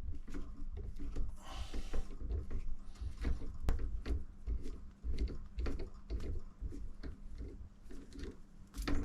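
M6 tap being turned by hand to cut a thread in a small cap held in a vise: irregular clicks and ticks, with a short scrape about a second and a half in.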